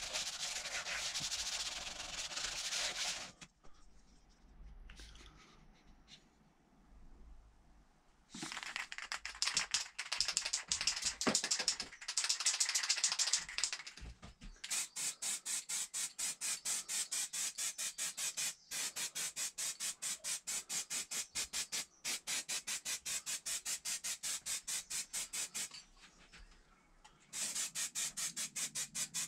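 Sandpaper scraping by hand over a plastic ATV body panel, then more loud scraping after a quieter spell. A long run of rapid, even strokes, about five a second, follows, and aerosol spray paint hisses near the end.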